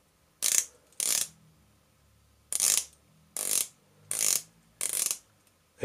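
The 120-click ceramic dive bezel of a Certina DS Action Diver being turned by hand in six short strokes, each a quick run of clicks. The bezel is tight, with no play.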